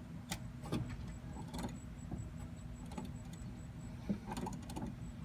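Scattered light metallic clicks and knocks of hand tools and loose parts being handled during vehicle disassembly, over a steady low hum.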